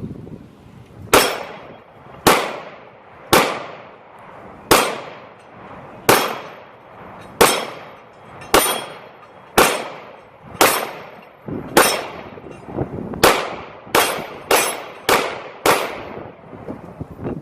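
CZ P10-C 9mm pistol firing Federal aluminum-cased 115-grain ammunition: about fifteen single shots, roughly one a second and quicker over the last few, each trailing off briefly.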